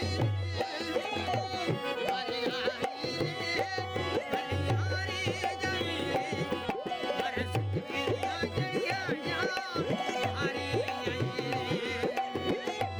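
Rajasthani Manganiyar folk music played live: a hand drum keeps a steady rhythm of low strokes under a wavering, richly ornamented melody line.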